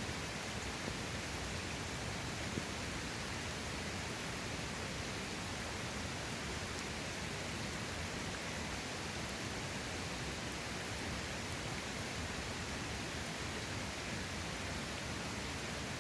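Mountain stream water rushing steadily over rocks, an even unbroken noise.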